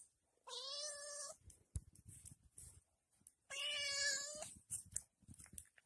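Red fox giving two high, slightly wavering whines, each about a second long, one near the start and one about three and a half seconds in.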